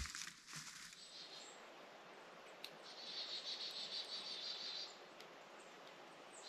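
Footsteps crunching through dry fallen leaves that fade within the first second, then faint outdoor woodland ambience with a high-pitched rapid trill lasting about two seconds in the middle.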